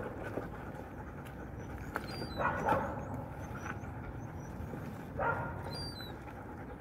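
Stray dogs eating, with a dog giving two short vocal sounds, about two and a half and five seconds in.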